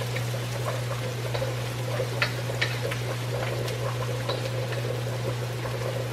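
Chopped garlic sizzling in hot oil in a wok, with irregular crackling pops and a wooden spatula stirring and scraping against the pan, over a steady low hum.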